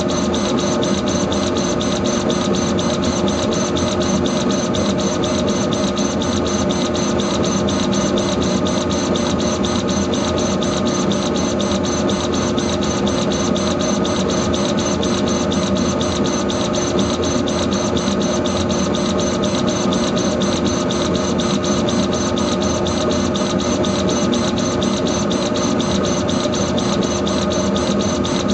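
Laser engraving machine running while it engraves an anodized aluminium card: a steady mechanical hum with a few constant tones and a fast, even pulsing as the head sweeps back and forth.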